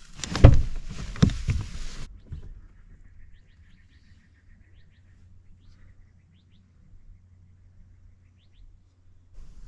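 A couple of low bumps and rustling for about two seconds. Then it goes quiet except for scattered short bird chirps and a faint trill.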